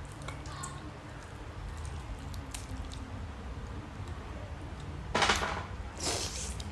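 Mouth sounds of someone chewing steamed chicken close to the microphone: faint smacks and clicks over a steady low hum, with two short, louder noisy sounds about a second apart near the end.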